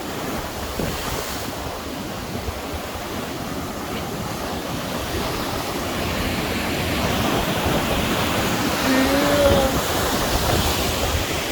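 Steady rushing of waves and wind buffeting the microphone, with a brief pitched sound about nine seconds in.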